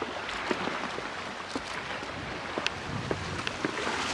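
Water running steadily, with scattered small ticks and clicks over it.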